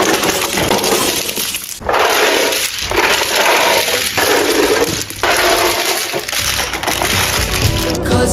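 Packaging being unwrapped: loud crackling and crinkling in several long stretches, broken by short pauses about two, three, four and five seconds in.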